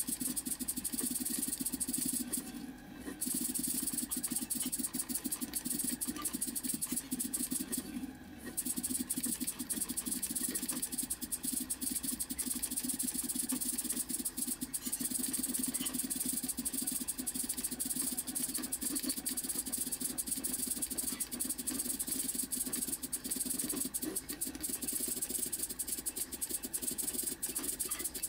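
Stepper motors of a homemade pen plotter driving the pen carriage as it draws, a steady buzzing chatter of rapid steps. It stops briefly twice, a few seconds in and again about eight seconds in.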